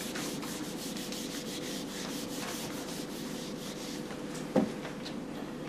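A hand-held eraser wiping marker off a whiteboard in quick back-and-forth strokes. The strokes die away about three and a half seconds in, and a single short knock follows about a second later.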